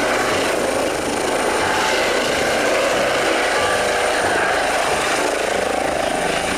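Eurocopter EC135 air ambulance helicopter flying low, its turbines and rotors running steadily, with a steady high whine over the rotor noise.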